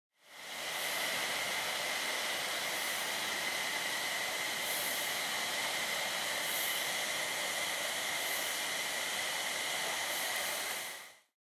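Steady hiss of falling rain, fading in at the start and fading out near the end.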